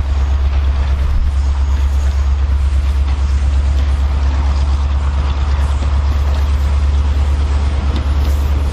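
Class 35 Hymek diesel-hydraulic locomotive's Maybach engine running as the train draws into the station: a loud, steady low drone with an even pulsing throb.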